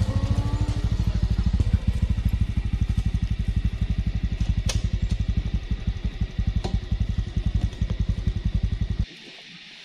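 Honda CT125 Trail 125's air-cooled single-cylinder four-stroke engine idling with an even, low putter, then switched off about nine seconds in, cutting out suddenly.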